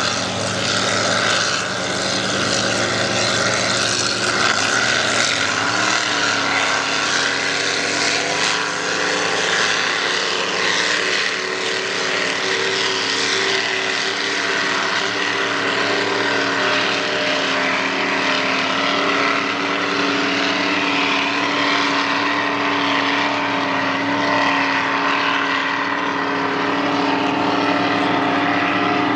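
Racing powerboat engines running flat out, a steady engine sound made of several tones that drift slightly in pitch.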